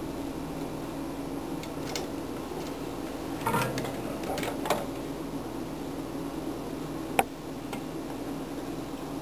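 Handling noises as a blue plastic electrical box fitted with LEDs is worked by hand and set down on a wooden table: a brief clatter about three and a half seconds in and one sharp click about seven seconds in, over a steady low hum.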